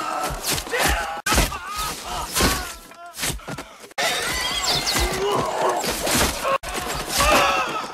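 Arrows striking wooden shields and men in a film battle scene, many sharp hits in quick succession, mixed with soldiers shouting and crying out in pain. The sound breaks off abruptly a few times at edits.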